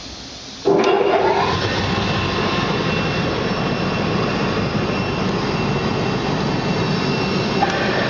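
Bubble washing machine switched on: its air blower starts with a sudden jump in noise and a brief rising whine as the motor spins up, then runs steadily while the air churns the water in the tank. A click near the end as a second switch is pressed.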